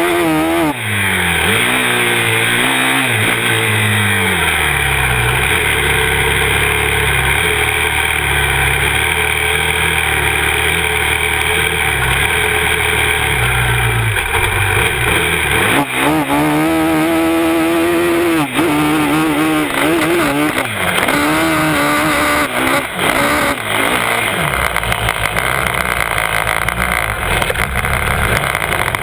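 Yamaha YFZ 450R SE sport quad's single-cylinder four-stroke engine heard up close while riding. It revs up and down at first, holds a steady pitch for about ten seconds, then rises and falls repeatedly as the throttle is worked again.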